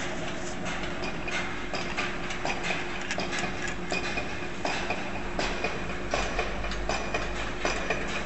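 Brass and plastic plumbing fittings handled and screwed together in the hands: irregular small clicks and taps over a steady background hum.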